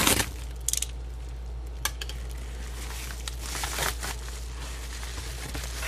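A package being opened by hand: scattered clicks, scrapes and brief rustles of the packaging, the longest rustle a little past the middle, over a steady low hum.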